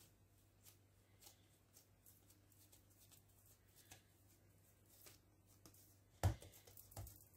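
Quiet hand-handling of bread dough on a countertop, with faint ticks over a steady low hum. A dull thump about six seconds in and a softer one a second later, as dough is set or patted down on the counter.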